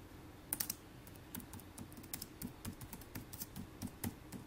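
Typing on a computer keyboard: irregular keystroke clicks, with a couple of louder clacks about half a second in and another near the end.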